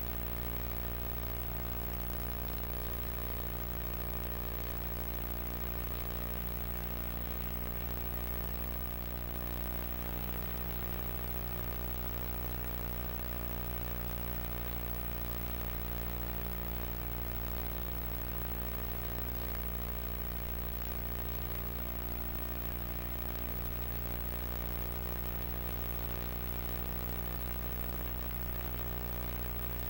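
Steady electrical hum with a buzz of many evenly spaced overtones over a constant hiss, unchanging throughout; no speech or other sound.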